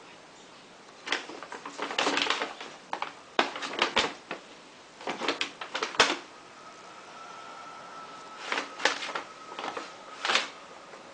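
Brown paper grocery bag rustling and crackling in irregular bursts as a kitten moves and scrambles inside it.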